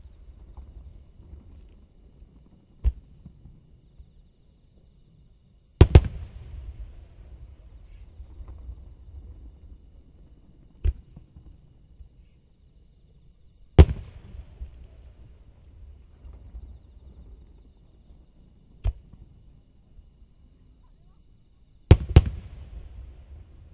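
Aerial fireworks shells booming from several hundred metres away, one at a time. There are three loud booms, each followed by a rolling echo, and the last is a double crack. A quieter thump comes about three seconds before each boom.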